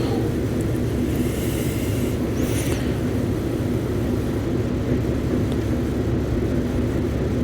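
A steady low mechanical hum drones evenly throughout, with two faint brief hissy scratches about one and a half and two and a half seconds in.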